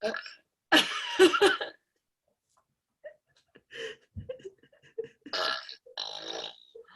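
A woman burping: one loud, long burp about a second in, then several shorter, fainter sounds.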